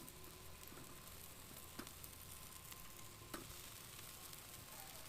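Faint sizzling of a Cornish game hen cooking over a hickory wood fire, its fat spitting and flaring, with two sharp pops about two and three and a half seconds in.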